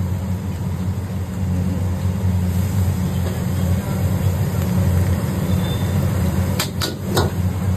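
Commercial gas wok burner running with a steady low rumble under a carbon-steel wok. Near the end a metal ladle knocks against the wok three times.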